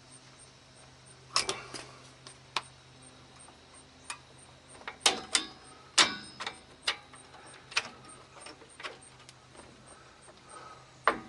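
Metal clicks and clinks of drum brake shoes, return springs and hold-down hardware being handled and fitted on the backing plate by hand. The sharp taps are scattered irregularly, a cluster about a second and a half in and the loudest around five to six seconds in.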